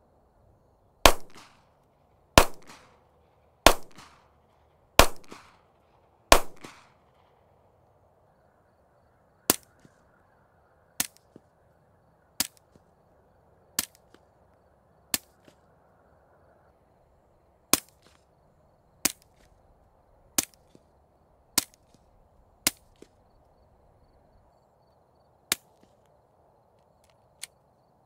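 Glock 19X 9mm pistol firing: five unsuppressed shots about 1.3 s apart, each with a ringing echo tail. Then a string of much quieter, short, clipped shots through a CGS Group Kraken 9 suppressor, first with 147-grain and then with 165-grain Freedom Munitions Hush subsonic ammunition.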